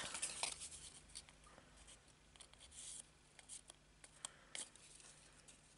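Faint handling of card stock: a sharp click at the start, then soft scratchy rubbing of paper and a few small ticks.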